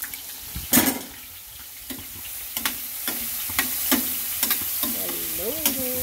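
Metal ladle clacking and scraping against a stainless steel pan while stirring onions and carrots sautéing in oil, over a steady sizzle of frying. The knocks come at an irregular pace, with one loud clack about a second in, and the sizzle grows louder from about two seconds in.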